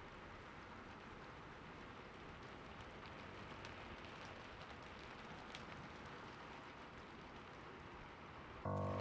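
Steady rain falling, an even hiss with scattered sharp drop ticks. Near the end, music with sustained pitched tones comes in suddenly and is louder than the rain.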